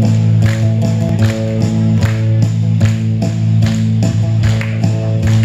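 Guitar amplified through a PA, strummed in a steady rhythm of about two strokes a second over ringing low notes, playing the instrumental introduction to a Chinese folk song medley.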